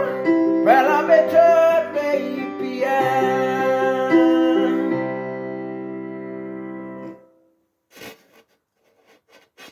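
A man singing over chords played on an electronic keyboard; the song ends on a held chord that fades out about seven seconds in. A short knock follows about a second later.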